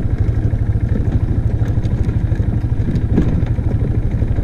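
Four-wheeler (ATV) engine running steadily as the quad is ridden along a dirt trail, with a fast, even low pulse and a few rattling knocks.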